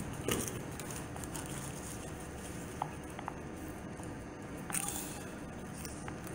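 Bare feet thudding and stepping on gym mats over a steady background hiss, with a couple of sharper thuds, one just after the start and one near five seconds.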